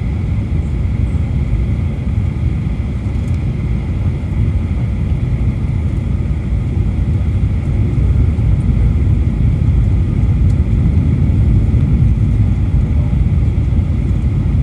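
Boeing 737 airliner cabin noise: a steady low rumble of the engines and airflow, with the landing gear and flaps extended. It grows a little louder about halfway through.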